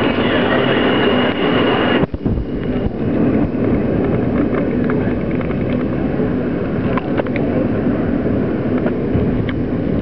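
Interior running noise of an R160 subway car moving through a tunnel: a steady loud rumble, with a high steady whine that cuts off suddenly about two seconds in, then continued rumble with a few sharp clicks and rattles.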